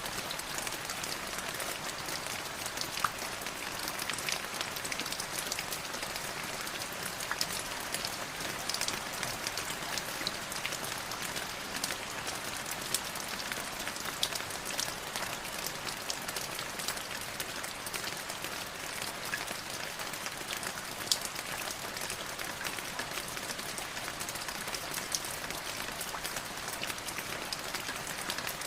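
Light drizzling rain, a steady hiss with many individual drops ticking and pattering on a surface.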